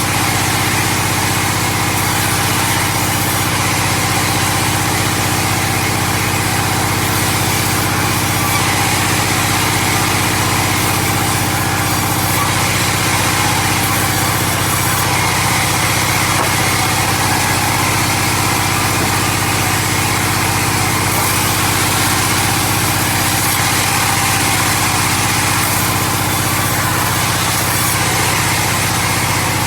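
Small engine of sawmill machinery running steadily at an even speed.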